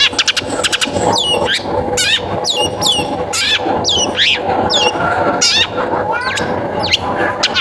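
Long-tailed shrike (cendet) in full song: a fast run of sharp, harsh notes and whistles sweeping down in pitch, about two to three a second, over a dense background of other calls.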